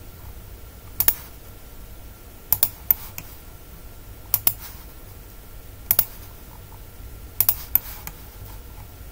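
Scattered sharp clicks of a computer mouse and keyboard as points are picked to draw lines, a click every second or two, some in quick pairs and a run of three near the end, over a faint steady hum.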